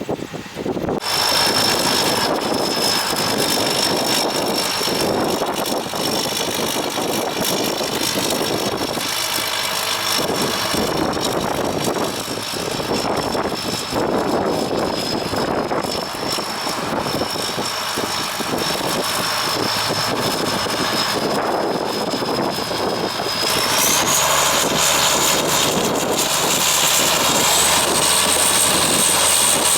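Gleaner R42 combine harvester running while harvesting soybeans: a steady, loud machine noise with a thin high whine that steps up in pitch twice in the last quarter.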